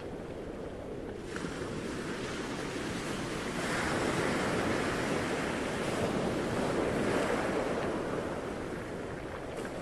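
Ocean water noise: a steady rushing hiss that swells louder through the middle and eases off near the end.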